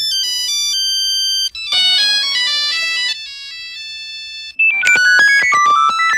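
Nokia mobile phone ringtones playing one after another, each a short electronic melody of clean, bright notes. The tune changes about a second and a half in, a quieter one follows about three seconds in, and a new melody with falling notes starts about four and a half seconds in.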